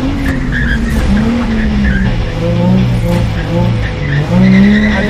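Nissan 350Z drift car sliding, its engine revving up and down again and again with short bursts of tire squeal.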